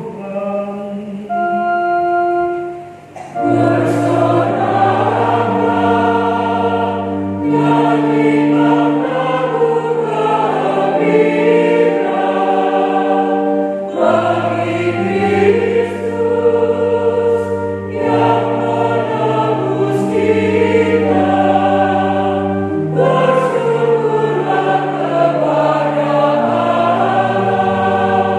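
Mixed church choir singing a hymn with electronic organ accompaniment. A short held organ chord sounds about a second in, then the choir and organ enter together about three seconds in and carry on steadily.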